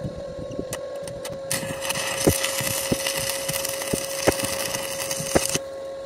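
Stick (arc) welder at 120 amps: the electrode strikes an arc about a second and a half in and burns with a steady crackling hiss and a few sharp pops for about four seconds, then breaks off abruptly as the bead on the steel frame corner is finished. A steady hum runs underneath.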